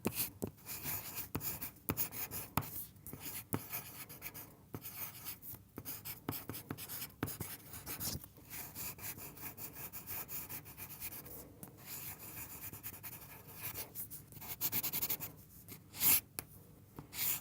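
Graphite pencil scratching across paper in a run of quick writing strokes, broken by short pauses, with two louder strokes near the end.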